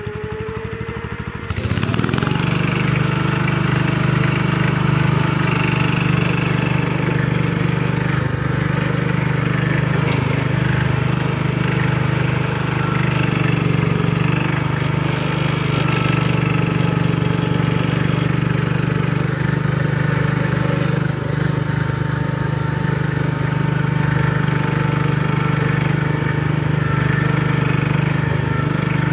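1974 John Deere 140 garden tractor engine running steadily under load as the tractor pushes dirt with its front blade. It gets louder about a second and a half in.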